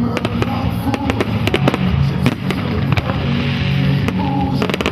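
Fireworks display set to music: a dense run of bangs and crackling shell bursts over steady accompanying music.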